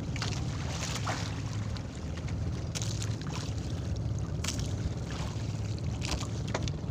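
Small boat engine running steadily at a low pitch, with a few short scrapes and splashes as a handline is hauled in by hand.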